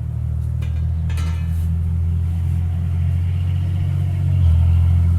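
Road traffic going by: a steady low rumble that swells louder near the end as a vehicle passes. There are a couple of brief light clinks about a second in.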